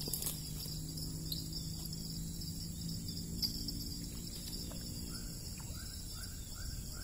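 Steady, high-pitched chorus of insects (crickets or cicadas), with a run of about five short, evenly spaced calls near the end.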